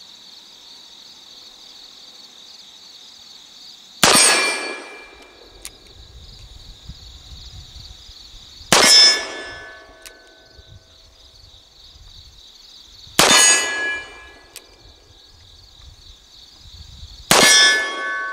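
Four shots from a replica Colt First Model Richards conversion revolver firing black-powder .44 Colt cartridges, spaced about four to five seconds apart. Hits on steel targets ring on after the shots, and a short click follows each shot about a second and a half later. A steady insect chorus runs behind.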